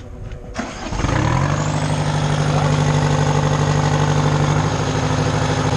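Mayco concrete trailer pump's engine and hydraulics starting up and running hard at a steady speed, with a high whine over the hum, while the hydraulic accumulator charges for a pre-charge pressure check. The sound comes on about half a second in and builds to full strength within a second.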